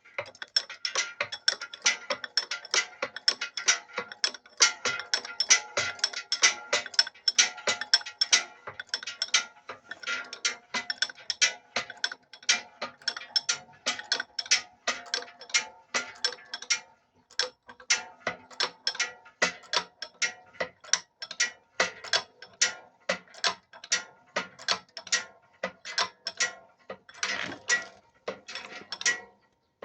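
Geared mechanism of an amusement excavator machine running, with a rapid ratchet-like clicking, about two to three clicks a second, over a steady whir. The clicking pauses briefly about halfway through.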